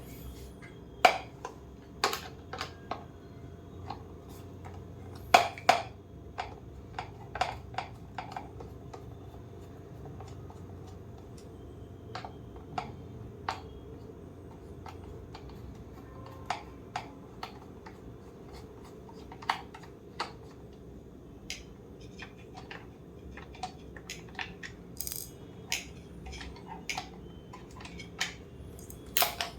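Irregular clicks and knocks of small parts and tools being handled as a Philips steam iron is taken apart, some sharp, some light, over a faint steady hum.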